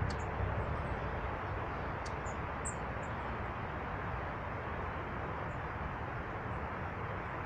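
A few short, thin, high-pitched calls from small birds, bunched in the first few seconds, over a steady low rushing background.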